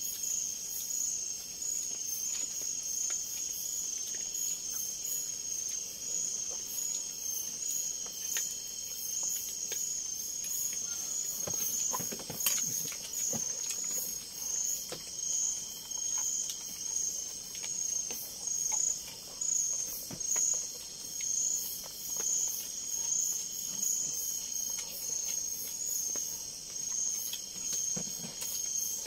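Forest insects chirping in a steady, high, evenly pulsing trill, with a second, higher chirping layer over it. A few faint clicks and a brief knock about twelve seconds in.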